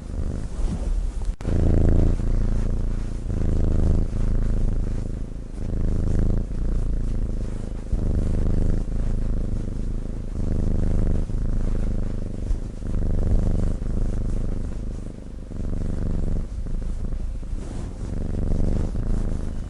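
Sleeping cat snoring: a low rattle that swells with each breath, repeating every couple of seconds.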